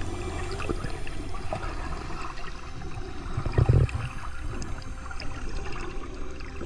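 Water sloshing and gurgling around the camera, with scattered small clicks and a louder low gurgle about three and a half seconds in.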